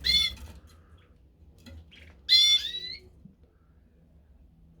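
Canary calls: two loud, clear-pitched calls about two seconds apart, the second longer and bending upward at its end.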